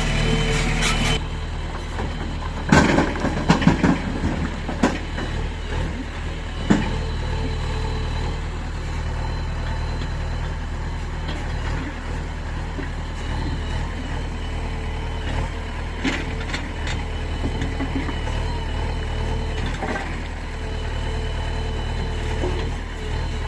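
Diesel engines of a backhoe loader and tractor running steadily. A burst of knocks and clatter comes about three seconds in, with a few single knocks later, fitting stones being dropped into a tractor trolley.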